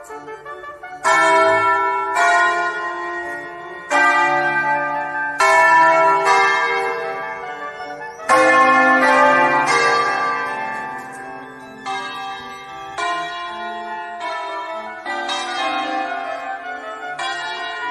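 Church bells ringing in a stone bell tower: several bells of different pitch struck one after another, a new stroke every second or two, each ringing on and fading away.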